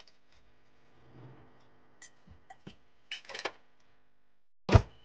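Handling noises as a man caps a glass tea flask and gets up from the table: a few light clicks and knocks about two seconds in, a short rustling clatter a little past three seconds, and one loud thump near the end.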